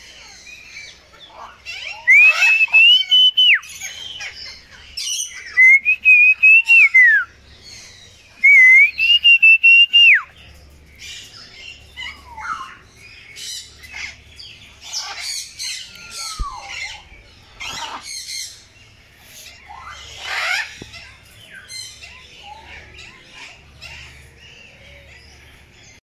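Three long, loud screeches from a large parrot in an aviary, each held at a steady pitch for a second or two, followed by shorter scattered calls and chirps from other birds.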